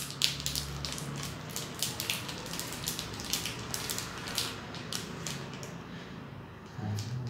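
Plastic wrapper of a Cadbury Fuse chocolate bar crinkling and crackling as it is torn open and peeled off the bar, the crackles thinning out in the second half.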